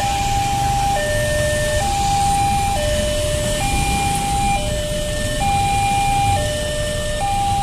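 Railway level crossing warning alarm sounding its two-tone electronic signal, a higher and a lower tone alternating, each held just under a second. Underneath is the low running of idling motorcycle and truck engines waiting at the crossing.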